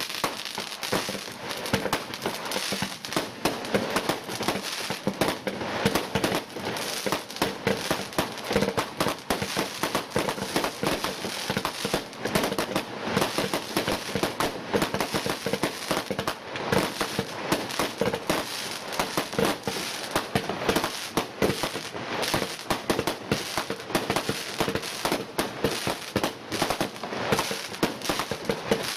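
Weco Pyro Tec Pro compound fireworks battery firing continuously: a dense, irregular run of pops, bangs and crackles from its shots and small aerial bursts, several a second.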